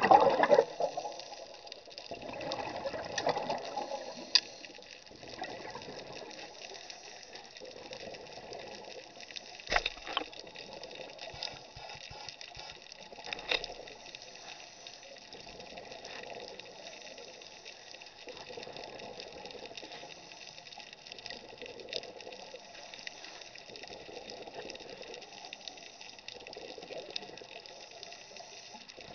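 Scuba regulator breathing heard through an underwater camera housing: exhaled bubbles gushing in loud surges in the first few seconds, then a steadier bubbling hiss with a few sharp clicks.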